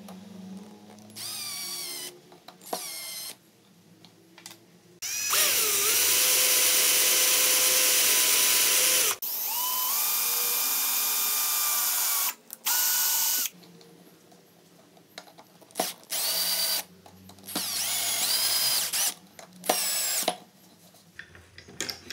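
Electric drill/driver running in a series of trigger bursts while working screws in a small wooden block: a few short pulses, a long run of about four seconds and another of about three, then several short bursts. Its motor whine sweeps up in pitch as each run starts.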